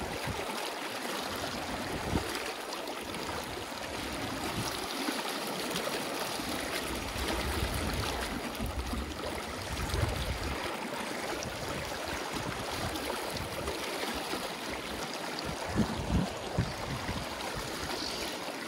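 Steady rushing of a shallow, fast mountain creek pouring over rocks in a riffle. A few low thumps sound around the middle and again near the end.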